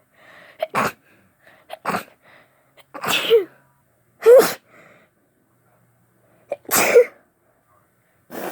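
A run of wet sneezes from someone with a heavy head cold: about five sharp bursts, some voiced with a falling 'choo', each with a quick breath drawn in before it. The loudest comes a little past halfway.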